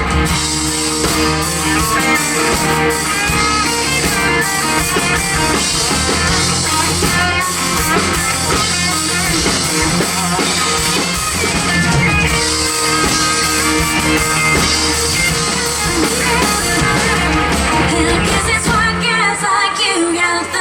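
Live country-pop band music, loud and continuous, with guitars and drums and some singing.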